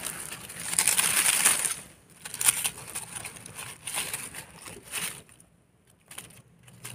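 Dry leaf litter rustling and crackling as hands pull a mushroom from the forest floor, loudest for about a second near the start. Then come a few short scrapes and crackles as a small knife cleans soil off the mushroom's stem.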